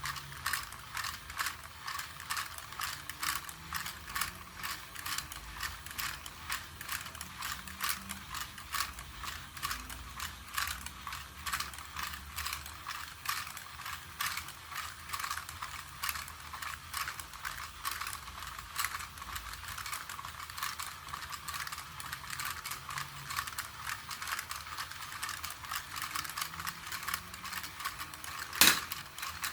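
2004 WowWee toy robot walking under its own motor, its plastic gearbox and leg mechanism clicking in a rapid, regular rhythm. One louder knock comes near the end.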